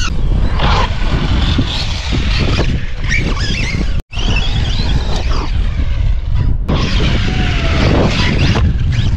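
Arrma Outcast 4S RC monster truck being driven hard: its brushless motor whines, rising and falling in pitch with the throttle, over a steady low rumble. There is a brief dropout about four seconds in.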